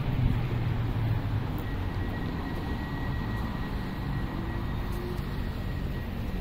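Road traffic on a city street: a steady hum of vehicle engines and tyres, with a faint thin high whine held for a few seconds in the middle.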